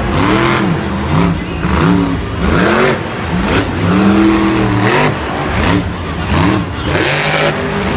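Monster truck engine revving hard, its pitch swelling up and falling back again and again, about once a second.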